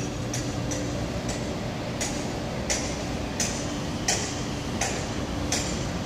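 Sharp ticks repeating evenly, about three every two seconds, over a steady low hum.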